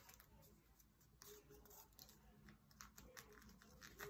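Faint crinkles and small clicks of origami paper being folded and creased by hand, coming irregularly every half second or so.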